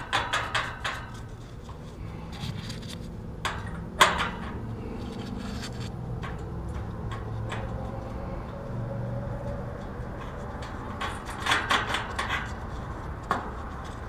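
Metal clinks and rattles of bolts and fender washers against the condenser's steel fan grille as the new fan motor is fastened to it by hand, in small clusters near the start, around four seconds in and near the end. A steady low hum runs underneath.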